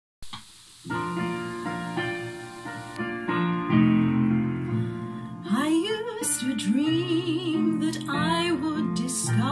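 Piano accompaniment playing an introduction, then a woman's voice comes in singing with vibrato about five and a half seconds in.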